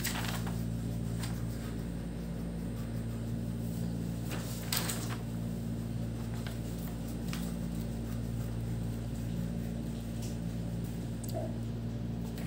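A steady low electrical hum, with a few brief scratches from wax crayons being rubbed on paper, the clearest at the start and about five seconds in.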